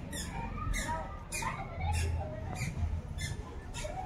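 A rapid series of short, high-pitched squeaky chirps, each falling in pitch, repeating about two or three times a second, with faint voices underneath.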